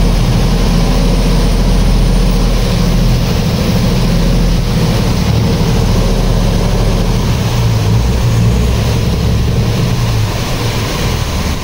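Canal express boat's engine running loud and steady under way, heard from inside the open cabin, with water rushing and splashing along the hull. The engine's low hum drops a little near the end.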